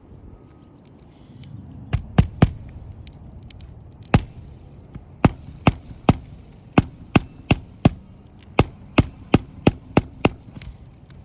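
Hammer driving roofing nails to fasten a new asphalt shingle: about seventeen sharp blows in runs of two to three a second, starting about two seconds in.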